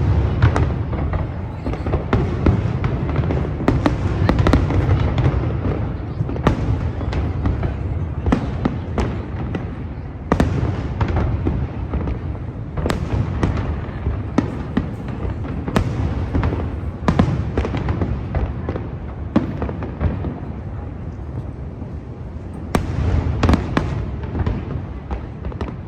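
Aerial fireworks shells bursting in a dense, continuous barrage: many sharp bangs over a constant low rumble, thinning briefly near the end before a last cluster.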